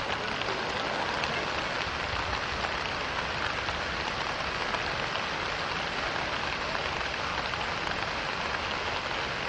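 Steady, unbroken rush of water: a swollen flood torrent pouring past, with rain falling.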